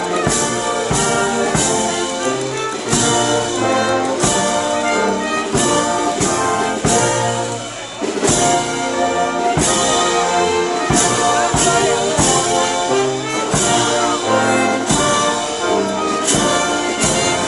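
Brass band playing a processional march, with trumpets and trombones carrying the melody over sharp, regular accents.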